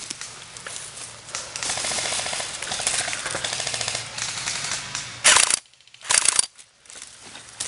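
Airsoft electric gun firing on full auto, a fast, even rattle lasting a couple of seconds. Two short, louder bursts of noise follow near the end.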